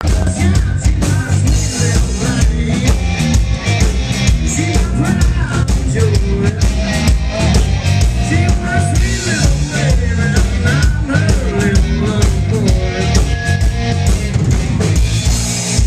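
A live rock band playing loud and amplified: drum kit, bass and electric guitar, with a harmonica cupped against a hand-held microphone playing a lead line that bends up and down in pitch.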